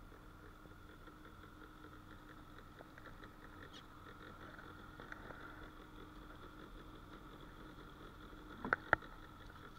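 Faint steady hum of a small outboard motor running at trolling speed. Two sharp knocks close together near the end.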